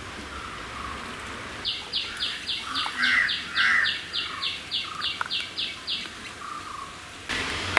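A bird calling in a quick, even series of about fifteen short high chirps, three or four a second, over fainter calls from other birds.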